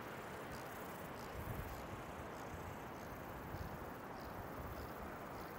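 Faint, steady outdoor background hiss with scattered faint, short high chirps from insects in the summer meadow grass.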